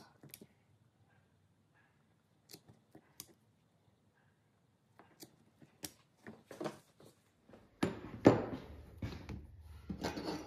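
Scattered sharp clicks and taps of hand tools working a leather belt. From about eight seconds in there is louder, denser handling and rubbing of the leather and tools.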